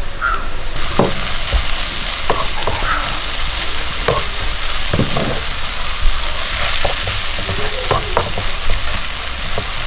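Sliced onions frying in hot oil in a pan with mustard seeds and curry leaves, sizzling steadily, while a spatula stirs and scrapes through them in short strokes. The onions are at the sautéing stage, wilting and starting to change colour.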